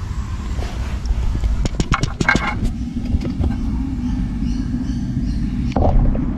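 Steady low rumble on the microphone, with a quick run of clicks and rustles from handling about two seconds in. Near the end the sound suddenly turns duller and the rumble louder.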